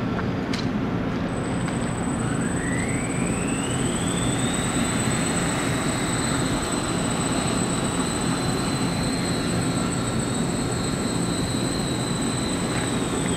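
Electric motors and propellers of a small 3D-printed quadcopter drone spinning up for takeoff: a whine rises in pitch over about two seconds, then holds steady while the drone hovers, over a steady low rumble, and drops away near the end.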